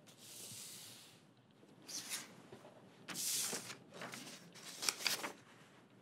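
A sheet of paper slid across a tabletop with a soft hiss, then the paper is picked up and handled, rustling in several short crinkles.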